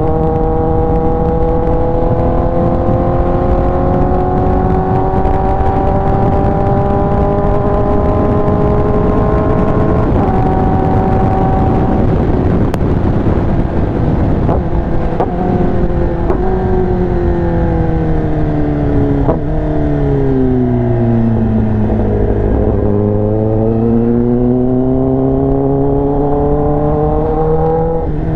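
Kawasaki ZX-10R's inline-four engine breathing through an SC-Project exhaust while riding. The engine note climbs slowly for about ten seconds and breaks off, then falls away for several seconds before climbing again near the end. A steady low rush of wind noise runs underneath.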